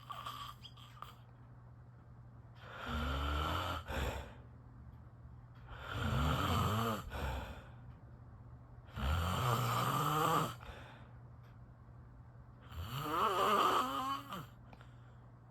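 A sleeping person snoring: four long rasping snores, one every three to four seconds.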